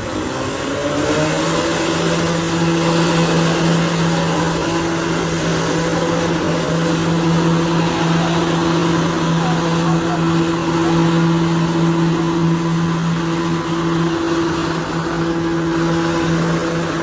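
A motor vehicle engine rises in pitch over the first second or so, then holds a steady speed, over a constant hiss of road traffic.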